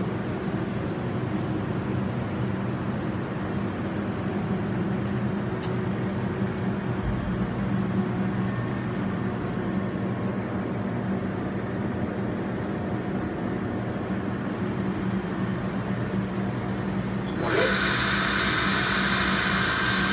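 Haas VM-2 vertical machining center humming steadily while powered up. About 17 seconds in, a sudden louder, high hiss with a steady whine sets in as the spindle starts running.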